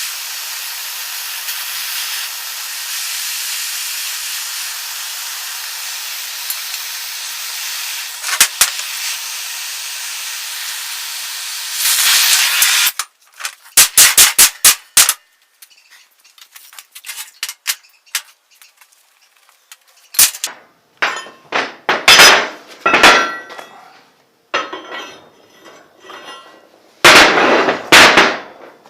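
A steady, loud hiss like a jet of air or spray, which cuts off sharply about 13 seconds in. It is followed by a string of sharp metallic clanks and knocks, like the vise's metal parts being struck or set down, with the loudest near the end.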